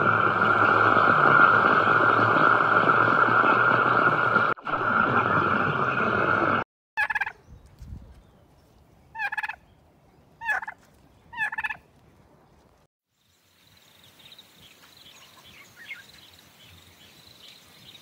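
Loud steady underwater rushing noise for the first seven seconds, then a turkey tom gobbling four times in short bursts. Near the end comes faint chaffinch song.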